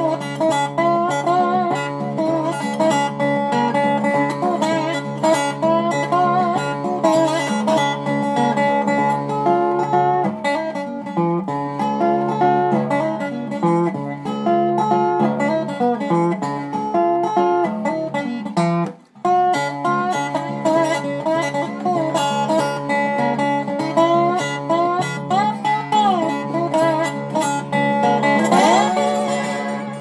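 Resonator guitar played solo with a slide and fingerpicking: a steady bass under a melody, in a traditional slide-guitar piece. The playing breaks off for a moment just past the middle, and sliding notes glide upward near the end.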